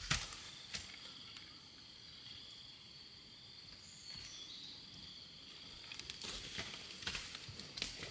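Steady high insect trilling, with a couple of sharp knocks near the start and a run of knocks and rustles in the last two seconds from a hoe and footsteps in dry bamboo litter and ash.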